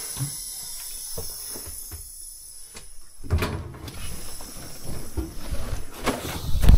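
Scattered knocks and clunks of a vehicle door being handled, ending in a heavy low thump as it shuts near the end.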